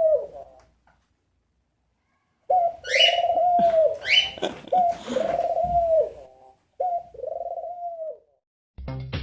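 Pet doves cooing: a run of drawn-out coos, with a few short rising higher calls among them, after a second or so of silence.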